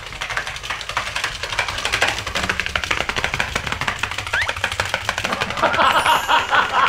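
Tamiya Mechanical Tiger walking robot kit walking across a tabletop, its small electric motor and gearbox driving the legs so the plastic feet clatter rapidly on the surface. Two men laugh loudly near the end.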